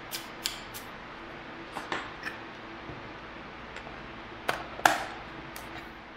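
Plastic case of a Sony ICF-C212 clock radio clicking and knocking as it is handled and turned over in the hands. Two sharper knocks come a little past the middle.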